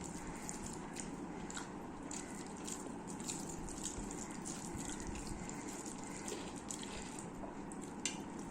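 A person eating close to the microphone: wet chewing with many quick mouth clicks.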